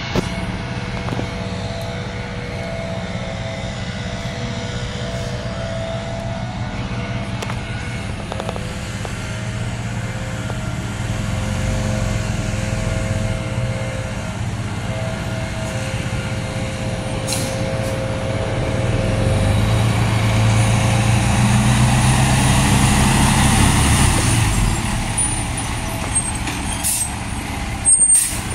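Fire engine's diesel engine running, first steadily and then louder for a few seconds as the truck pulls out and accelerates. Near the end there are a few short, sharp noises.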